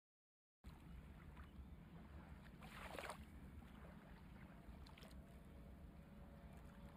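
Faint, steady low rumble of a truck cab's engine and road noise at highway speed, starting after about half a second of dead silence, with a brief whoosh about three seconds in.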